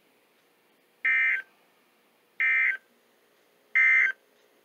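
NOAA Weather Radio SAME end-of-message data bursts: three short, identical buzzy electronic bursts about a second apart, marking the end of the flood warning broadcast.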